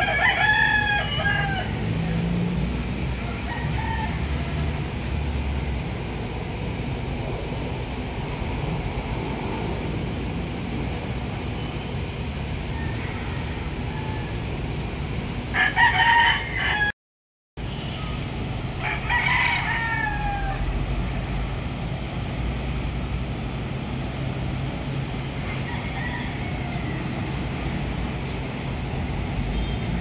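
Three loud pitched animal calls, each about a second long: one right at the start, one a little past the middle (the loudest), and one about two seconds later that falls in pitch at its end. A steady low rumble runs underneath, and the sound cuts out for about half a second just after the second call.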